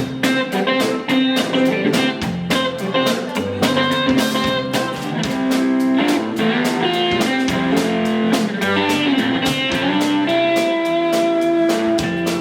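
Guitar playing a fast, evenly picked passage of notes and chords.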